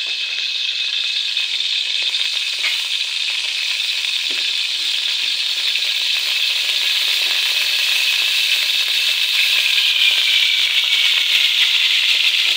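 A steady sizzling hiss that slowly grows louder as cooking oil is poured into a hot aluminium pot on a gas stove.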